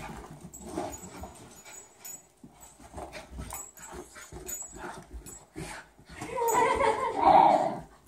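Dogs chasing a laser dot, with scattered light clicks and scuffles; a little after six seconds in, one dog whines loudly for about a second and a half.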